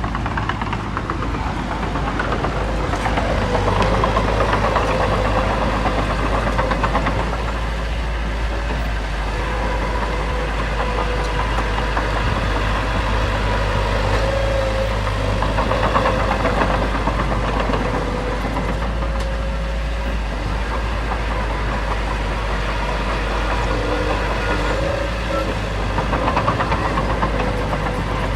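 Heavy diesel earthmoving machinery running continuously, its engine note swelling under load a few times, about ten seconds apart.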